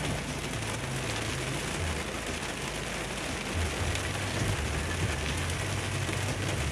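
Steady rain falling on a car's windshield and body, heard from inside the cabin, with a low steady hum from the car's engine underneath.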